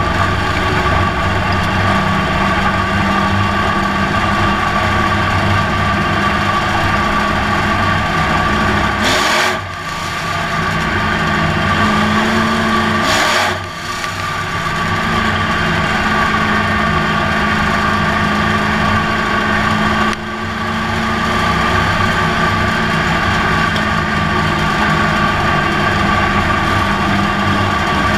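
Dirt track race car's engine heard from inside the cockpit, running hard at racing speed. Its note drops off suddenly and builds back up three times: about a third of the way in, near halfway and about two-thirds of the way in.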